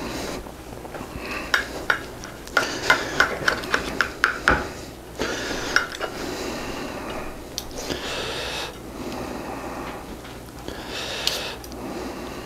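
Knife and fork clicking and scraping against a plate while a piece of grilled chicken breast is cut off: a quick run of sharp clicks in the first few seconds, then softer scraping and handling.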